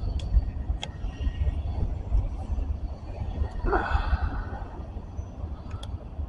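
Freight train rolling past, a steady low rumble, with a few sharp clicks and a brief louder noisy swell about four seconds in.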